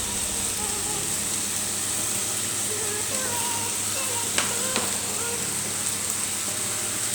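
Vegetables and egg noodles sizzling steadily in a hot stir-fry pan, with two sharp clicks a little after the middle.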